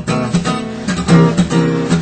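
Background music: acoustic guitar strumming chords in a steady rhythm, with no singing.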